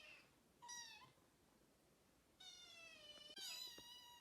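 Kitten meowing: thin, high-pitched mews, a short one about half a second in, then two longer ones back to back in the second half.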